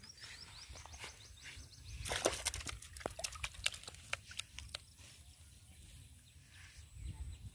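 A freshly caught fish thrashing in a small bucket of water: a burst of irregular splashes and knocks starting about two seconds in and lasting about three seconds.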